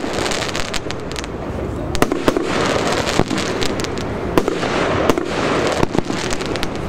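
Heron Cake 456 firework cake firing: a rapid, irregular stream of sharp bangs over a continuous dense hiss.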